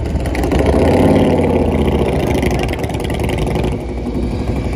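A motorcycle engine revving close by, rising in pitch and then falling away as it passes.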